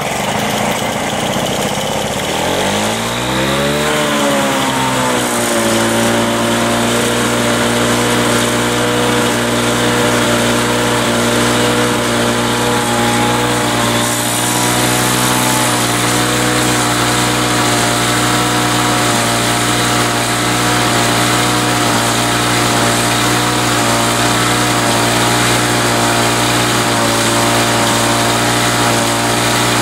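Lawn-Boy DuraForce 6.5 two-stroke mower engine running, freshly rebuilt on a new short block and tuned up. Its speed rises and falls once in the first few seconds, then it settles into a steady run.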